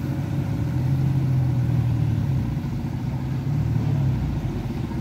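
Diesel engine of heavy road-works machinery running steadily at idle, a low drone that swells and eases a little.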